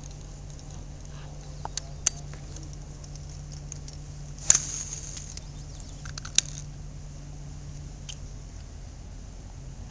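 Several sharp clicks and knocks over a steady low hum; the loudest comes about halfway through and is followed by a brief rustle.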